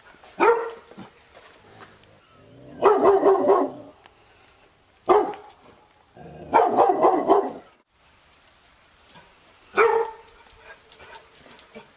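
Dog barking: a single sharp bark about every four and a half seconds. Each of the first two barks is followed by a run of rapid barks lasting about a second.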